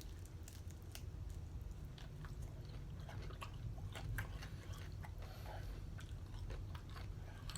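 A man chewing and biting into chicken wing drumettes, faint, with many small scattered clicks of mouth and teeth.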